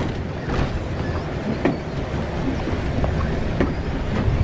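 Motorhome driving along a road, heard from inside: steady engine and road rumble with a few short knocks and rattles.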